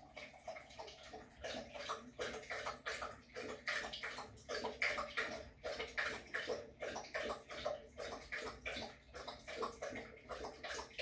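A Walker hound lapping water from a stainless steel bowl, in a steady rhythm of about three laps a second.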